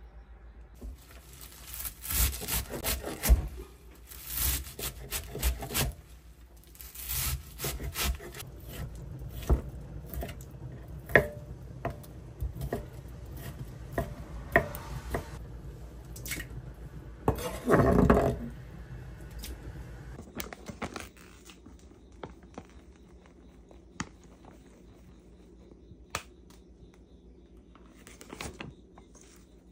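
Kitchen knife chopping shrimp and squid on a wooden cutting board: a run of sharp, irregular knocks that gives way after about twenty seconds to a few scattered clicks.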